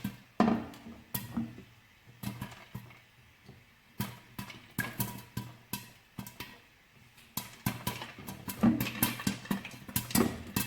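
Popcorn kernels popping in a pan on the stove: sharp, irregular pops with short lulls, coming thicker toward the end.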